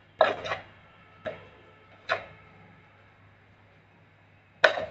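Spoon clicking and tapping as turmeric powder is spooned out of a jar onto chopped greens: about five sharp clicks, a quick double click at the start, single ones about one and two seconds in, and a louder one near the end.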